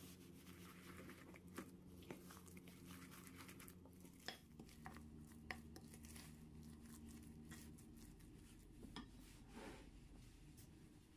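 Faint wet stirring of grated potato, onion and rolled oats with a wooden spoon in a glass bowl, with a few soft clicks and scrapes of the spoon against the glass.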